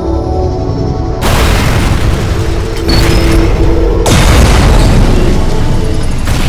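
Dramatic cinematic music with held notes over a deep rumble, broken by heavy booming impacts. The first big boom hits about a second in, and a second one about four seconds in.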